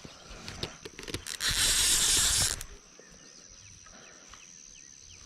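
A steady high insect drone, with scattered clicks, then a loud rushing hiss for just over a second about a second and a half in.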